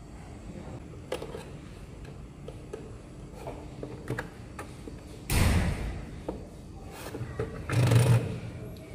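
Handling of a small plastic receipt printer: a few light clicks as a cable is plugged in and the cover is handled, then two louder bumps of about half a second each, around the middle and near the end, from the printer's plastic cover and case being worked by hand.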